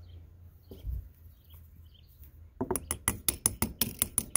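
Rapid run of light, sharp taps, about eight a second, starting a little over halfway in: a screwdriver handle tapping on a carburetor body to seat the float's push pin.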